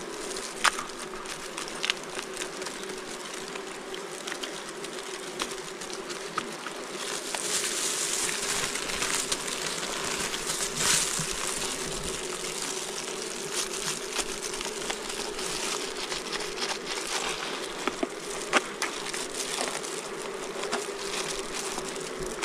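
Swarm of wild honey bees buzzing steadily around their nest, which has been broken open for its honeycomb, with a few sharp clicks and knocks from the comb being handled.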